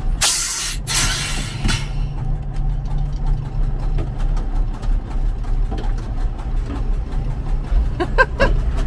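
Magirus Deutz truck's diesel engine idling steadily, with two loud bursts of hissing air near the start. The engine has a failed number-3 injector.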